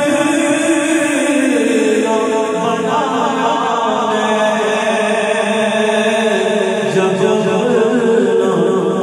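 A man singing an Urdu naat without instruments, drawing out long held notes that glide slowly from pitch to pitch.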